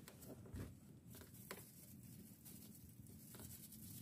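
Near silence: faint background hiss with a soft knock about half a second in and a light click about a second and a half in.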